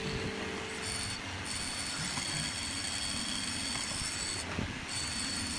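Electric hollow-chisel mortising machine running, its motor giving a steady high whine over a grinding, scraping noise of the chisel working in wood.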